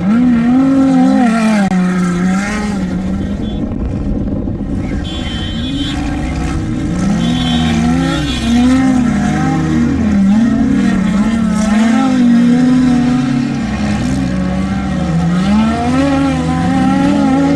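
An off-road desert race vehicle's engine being driven hard, revving up and down about once a second as the throttle comes on and off.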